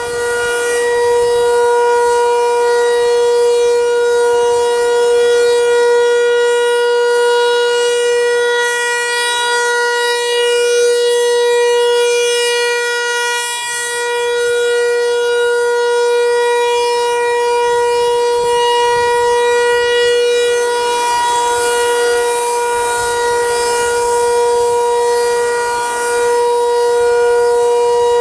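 Federal Signal 508 rotating tornado siren sounding its steady alert tone. It holds one pitch, and some of its upper notes fade and return as the horn turns.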